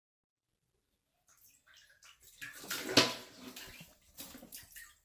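Water in a toilet bowl splashing and sloshing in short, irregular bursts as a cat paws and climbs in it, starting about a second and a half in, with the loudest splash about three seconds in.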